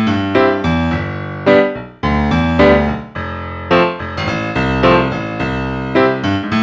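Background music led by a piano or electric piano, playing a steady run of chords and notes.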